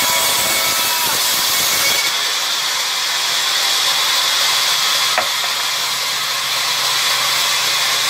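Sawmill band saw blade ripping through a plank: a steady, high-pitched hiss of the blade cutting wood, with one sharp click about five seconds in.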